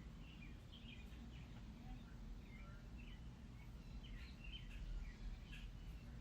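Birds chirping and twittering in many short calls throughout, faint, over a low steady background rumble.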